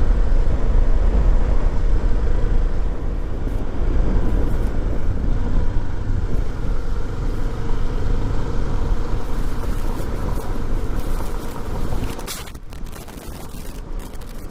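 Motorcycle engine running on the move, with a heavy low wind rumble on the microphone. It grows quieter about twelve seconds in.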